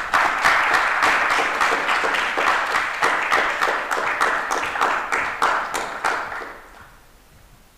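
An audience applauding: dense clapping that starts at once, holds steady, and dies away about seven seconds in.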